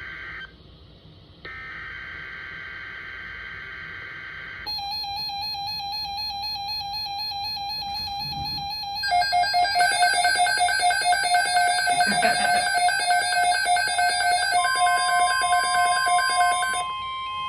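An Emergency Alert System activation on NOAA Weather Radio. It opens with the screechy warbling of the SAME digital header data bursts, then gives way to electronic alert tones that turn into a loud, rapidly pulsing beeping from about halfway in. Near the end the steady weather radio warning tone sets in and holds.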